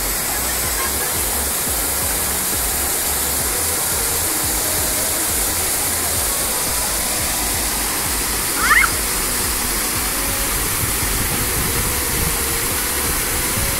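Small waterfall splashing steadily into a shallow pool, thin curtains of water pouring over a rock ledge. A short high-pitched cry rises briefly over it near the middle.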